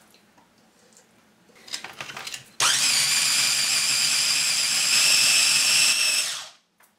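A few clicks and knocks, then a small electric food chopper's motor starts abruptly and runs at a steady high whine for about three and a half seconds, blending cooked onion and tomato into a smooth paste, before winding down.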